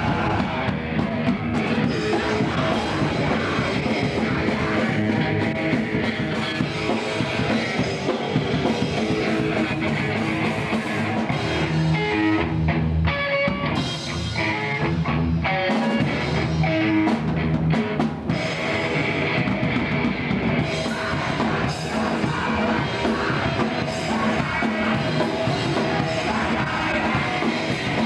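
A live punk rock band playing loudly and continuously: drum kit, electric guitar and some singing.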